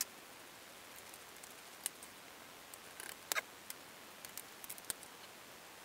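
Faint, scattered clicks and taps of a plastic drafting curve and a dry-erase marker against a whiteboard as a curve is traced. The strongest tap comes a little after three seconds, and a run of small ticks follows about a second later.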